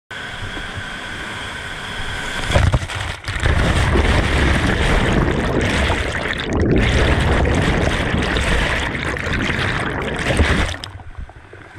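Churning whitewater close against an action camera's microphone: a loud, even rush with a heavy low rumble. It grows louder about two and a half seconds in and falls away shortly before the end.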